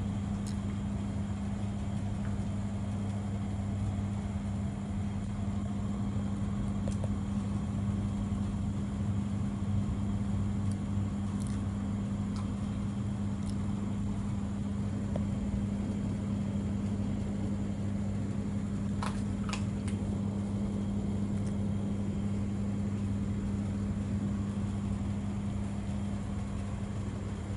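A steady low machine hum at an even pitch, with a few faint clicks scattered through it.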